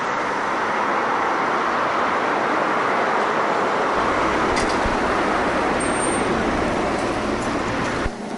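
Steady rushing noise of outdoor road traffic, with a low rumble joining about four seconds in; it cuts off suddenly just before the end.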